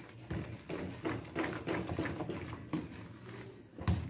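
Spoon beating thick cake batter by hand in a plastic mixing bowl: a quick, even rhythm of soft knocks and slaps, about three strokes a second.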